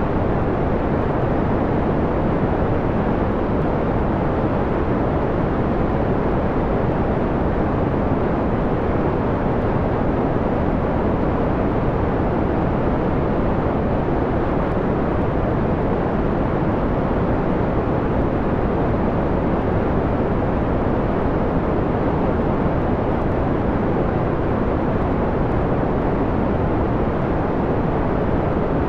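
Steady white noise filtered down to a dull, mellow hiss, its energy mostly in the low and middle range with little treble. It holds constant, with no events.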